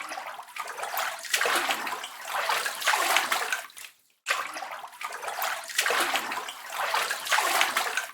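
Water splashing and sloshing, a clip of about four seconds that stops abruptly and is heard a second time.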